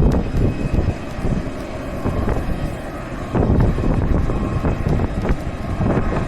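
Jet airliner engines running with a low rumble and a faint steady whine above it, while wind buffets the microphone in gusts.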